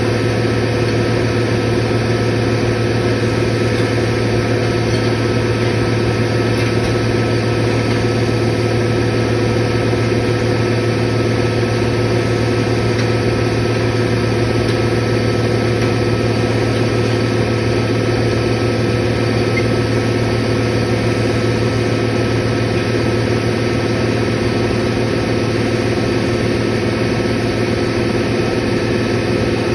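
Belt-driven open-drive refrigeration compressor running steadily, a constant low hum with several steady tones over it.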